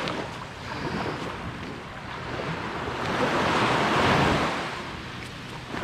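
Surf breaking and washing up a sandy beach, with wind on the microphone; one wave swells to a peak about four seconds in and then fades.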